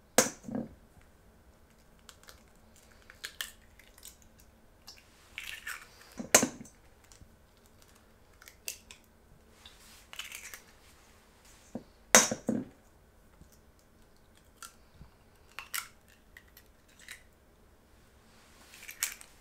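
Eggs being cracked into a mixing bowl one after another: three sharp shell cracks about six seconds apart and a softer one near the end, with small clicks and rustles of shell between them.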